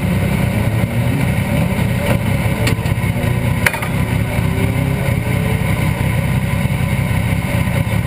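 Legend car's Yamaha motorcycle engine idling steadily, heard from inside the cockpit, with one sharp click a little past halfway.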